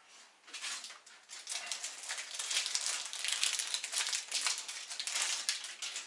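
Rapid, irregular clicking and rustling of PC parts being handled, getting louder about a second and a half in.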